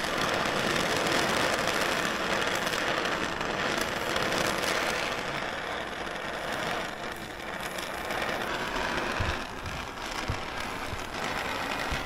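Gas torch flame hissing steadily on a steel arrowhead held in vise grips, heating it to cherry red for hardening before the quench. A few low bumps near the end.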